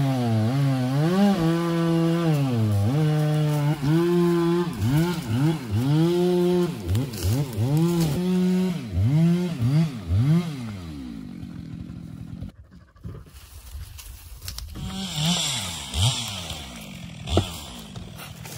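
Two-stroke chainsaw revved up and down over and over, with quick throttle blips in a fast rise-and-fall about twice a second from about six seconds in. About eleven seconds in it drops much quieter, with a few weaker revs near the end.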